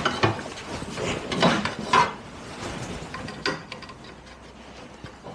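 Knocks, clicks and rubbing from adjusting a wood lathe with a small turned wooden top mounted in it, busiest in the first couple of seconds, then a faint low hum with scattered ticks as the lathe runs at a slowed speed.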